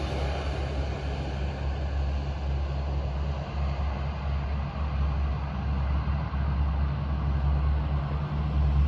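Low, steady rumble of a distant Airbus A330 airliner's jet engines as it lands and rolls out on the runway, with a faint hiss above it.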